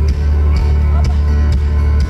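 Loud live electronic rock music: a heavy, steady bass line under a sparse backing, with no singing until a vocal line comes in just after.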